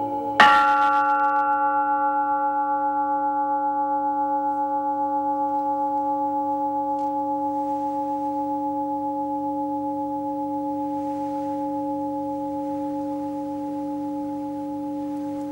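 A large Buddhist bowl bell struck once, about half a second in, then ringing on with several steady tones and a slow wavering beat, fading gradually but still sounding at the end.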